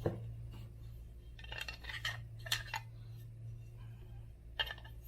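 A doorbell angle bracket and its mounting parts being handled and fitted together, with a few short clicks and clatters of small hard parts knocking against each other. A steady low hum runs underneath.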